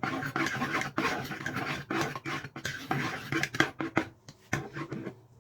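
Egg-and-milk mixture being stirred in a bowl, a utensil scraping and clicking against the bowl in a quick, irregular run that thins out near the end.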